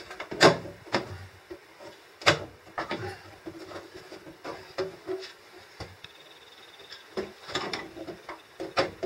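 Knocks, clicks and scraping of a consumer unit's cover being handled and fitted, then worked with a screwdriver. The sharpest knock comes about half a second in and another a little after two seconds.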